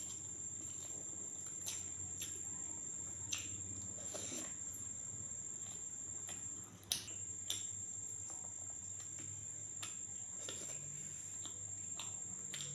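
Eating by hand: fingers mixing rice on a steel plate and chewing, heard as scattered soft clicks, with one sharp click about seven seconds in. A steady high-pitched tone and a low hum run underneath.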